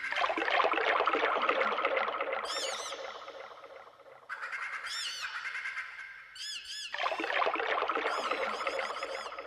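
Computer-generated electronic music: groups of short, high, bird-like chirps that rise and fall in pitch, over two swells of a dense rushing, rustling noise that each build and slowly fade.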